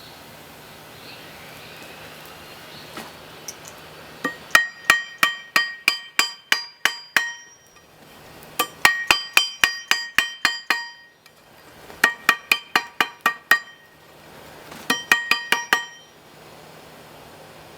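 Hand hammer forging steel on a railroad tie plate used as an anvil. Four runs of quick ringing blows, about five a second, with short pauses between them. The first run starts about four seconds in.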